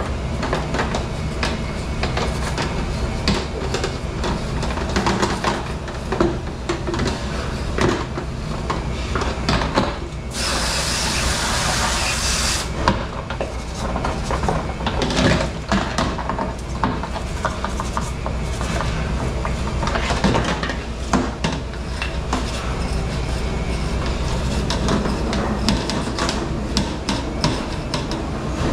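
A scrubber rasping and rubbing around the cups of metal muffin tins by hand, with frequent small clanks and knocks of the tins on a stainless-steel counter, over a steady low hum of commercial kitchen machinery. About ten seconds in, a hiss lasts for about two seconds.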